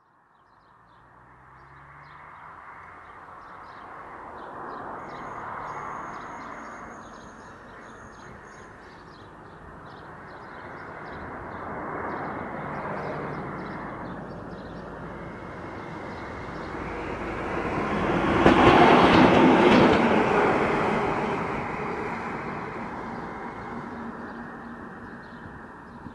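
DB class 294 diesel-hydraulic shunting locomotive approaching, passing close by and moving away: its diesel engine and running noise grow louder, peak about two-thirds of the way in as it passes, then fade.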